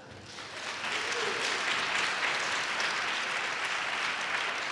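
A large audience applauding. The clapping swells over the first second, then holds steady.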